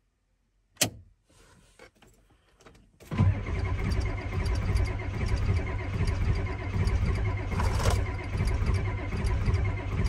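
Ford 7.3 IDI V8 diesel turning over on the starter for about seven seconds without firing, with an even rhythmic cranking beat and a steady starter whine. It will not catch because the glow plugs aren't heating in the cold. A single sharp click comes about a second in, before the cranking starts.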